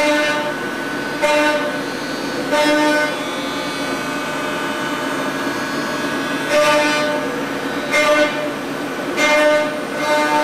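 CNC machining center's end mill cutting thick aluminum: a steady singing cutting tone with overtones, swelling louder and harsher in repeated surges about every second and a half, with a steadier stretch in the middle.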